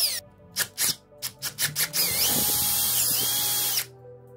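Power drill with a large twist bit boring through a plastic wheel hub: a few short trigger bursts, then a steady run of nearly two seconds that cuts off near the end.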